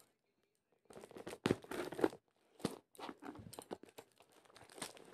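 Hands tearing open and crinkling the wrapping of a courier parcel. After about a second, a burst of tearing and rustling comes, then scattered crackles as the wrapping is pulled apart.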